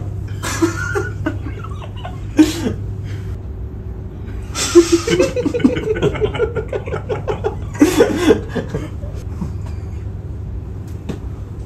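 Men laughing and chuckling in several short bursts, the longest a run of quick, even pulses in the middle, over a steady low background hum.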